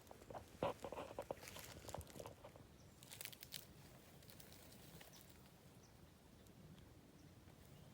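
Faint footsteps crunching on the forest floor, a run of soft crunches and clicks in the first three or four seconds, then near quiet.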